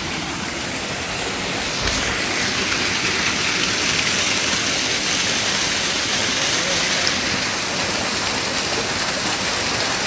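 Mountain stream water pouring over rock in a small cascade into a pool: a steady rushing that grows a little louder about two seconds in.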